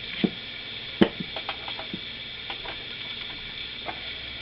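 Small clicks and knocks of a power adapter plug being pushed into a drum machine and the unit being handled, the sharpest click about a second in, over a steady background hiss.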